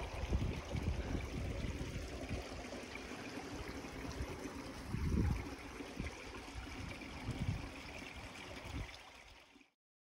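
Wind buffeting the microphone in irregular low gusts over a steady rush of moving water. The sound cuts off abruptly near the end.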